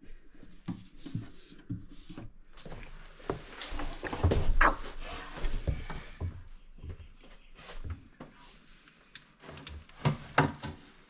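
Irregular knocks, clunks and rubbing of objects being handled and moved, with a louder run of clunks about four seconds in and another near the end.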